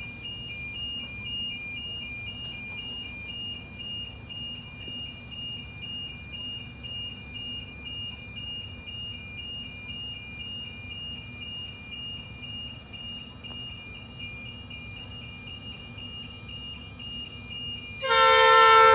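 Level crossing warning alarm sounding steadily, an electronic tone alternating between two pitches. About a second before the end, the approaching diesel locomotive's chime horn sounds loudly, a chord of several held notes that drowns out the alarm.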